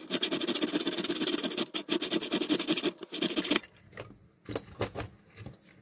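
A metal tool scraping and grating against the edge of a metal RF shielding can on a circuit board as it is pried at, a rapid rasping that stops about three and a half seconds in. A few light clicks of metal on metal follow.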